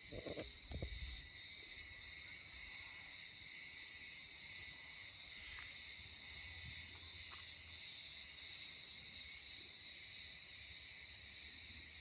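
Chorus of cicadas: a steady, unbroken high-pitched buzz, with a few short low thumps in the first second.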